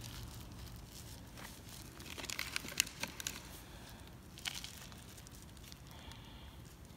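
Handling noise from gloved hands fiddling with a phone: soft rustling with scattered light clicks, a quick cluster of them about two to three seconds in and one more a little later.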